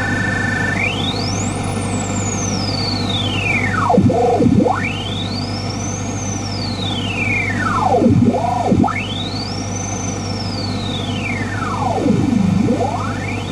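Old analog radio hissing with static over a low hum. Two steady tones stop about a second in, then a whistle sweeps up high and back down to a low growl three times, like the heterodyne squeal heard while tuning across a station.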